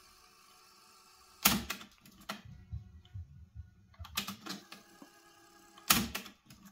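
Philips FC 931 cassette deck's transport mechanism clicking and clunking as its deck B buttons are pressed and it switches tape modes. The two loudest clunks come about a second and a half in and near the end, with a scatter of lighter clicks between.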